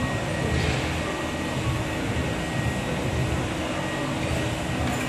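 Steady gym background noise: a constant hiss and hum like ventilation or air conditioning, with a faint steady high tone running through it.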